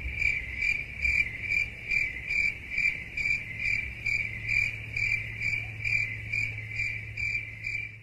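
Crickets chirping in an even rhythm, about two to three chirps a second, over a low steady hum: the stock cricket sound effect used as a joke for awkward silence.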